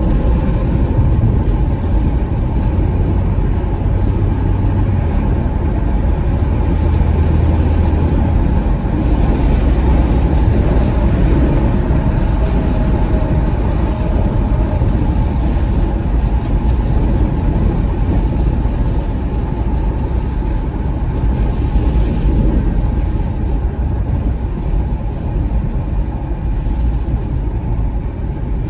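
Steady low road-and-tyre rumble and engine hum heard inside the cabin of a 2021 Porsche Macan S cruising at highway speed.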